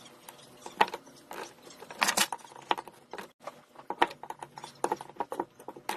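Irregular sharp clicks, knocks and scrapes as the cell holder bracket of a power-tool lithium battery pack is pried apart from the cells, with a dense cluster of clacks about two seconds in.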